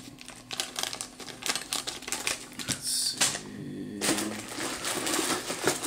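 Plastic tackle packaging being handled: a run of crinkles, taps and rustles as a bag of hooks is set down and the next pack is taken from a cardboard box.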